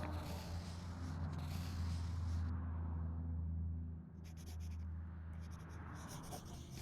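Short rasping scratches over a low steady hum: two longer hissing scrapes in the first couple of seconds, then three quick bursts of rapid fine scratching in the second half.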